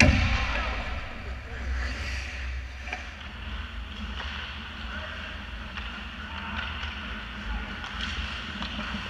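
Ice hockey rink sound close behind a goal net: a hard knock right at the start as play hits the net during a save, then skate blades scraping the ice with small stick clicks over a steady low arena rumble.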